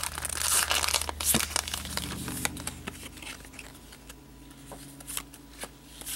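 Foil trading-card pack wrapper crinkling as it is handled and pulled open, loudest in the first half. Then quieter handling of the cards, with light scattered clicks as they are shuffled through.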